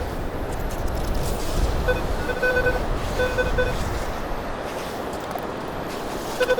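Metal detector sounding its target tone over a buried coin: a few short, steady-pitched beeps about two to three and a half seconds in, over a steady low rumble.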